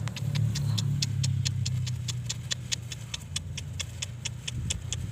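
Rapid, even ticking, about five ticks a second, over a low steady hum.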